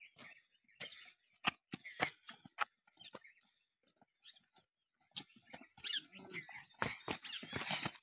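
Footsteps of several runners slapping on concrete steps, scattered strikes at first, then faster and louder from about five seconds in as the runners come close.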